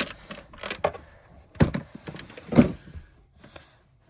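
A few knocks and thumps of hard plastic parts being handled and fitted. The two loudest come about one and a half and two and a half seconds in.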